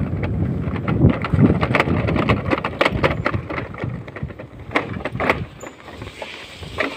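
Wind rumbling on a moving phone's microphone, with scattered clicks and knocks from handling. The rumble dies down after about four seconds as the movement slows.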